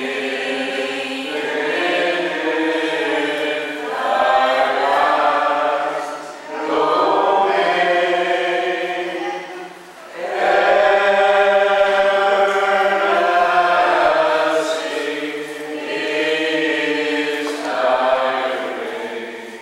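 Congregation singing a liturgical chant together in long phrases, with short pauses for breath between them.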